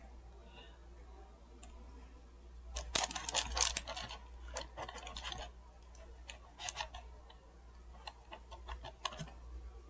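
Small objects being handled out of sight: quiet clicks and rustles, busiest in a run of about two seconds starting about three seconds in, with shorter bursts of clicks later.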